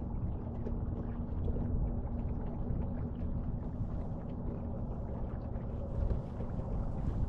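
Boat motor running steadily at slow trolling speed, a low rumble with a faint steady hum over it for most of the stretch.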